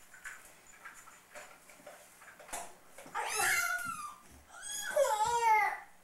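A toddler's wordless high-pitched vocalizing: two long, wavering squeals, the first about three seconds in and a louder one near the end.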